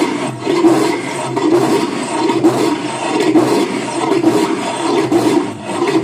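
Loud, heavily distorted music from a DJ sound system, with a steady throbbing pulse a little faster than once a second and little deep bass.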